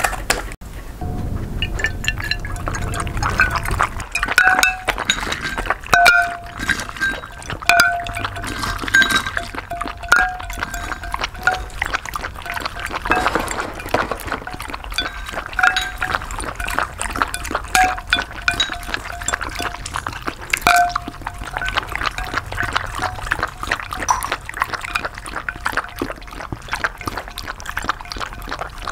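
Two dogs lapping milk from ceramic bowls: rapid wet lapping and slurping, close up, with ice cubes clinking against the bowls and the bowls ringing briefly now and then.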